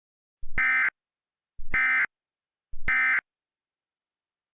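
Emergency Alert System SAME end-of-message data burst ('NNNN'), sent three times: three identical half-second buzzy data-tone bursts a little over a second apart, marking the end of the alert.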